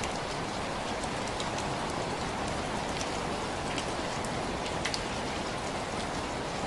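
Steady rain falling, a continuous hiss with many separate drops striking a surface close by.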